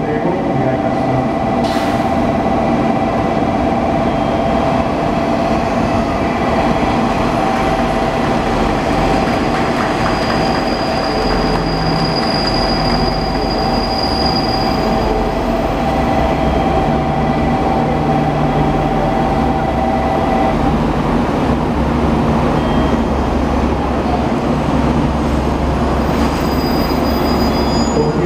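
Futatsuboshi 4047 diesel railcar train, made up of KiHa 40/47 cars, pulling into a covered station platform and running past close by as it slows. Steady brake and wheel squeal is heard until about two-thirds of the way through, then mostly the low drone of its diesel engines as it comes to rest.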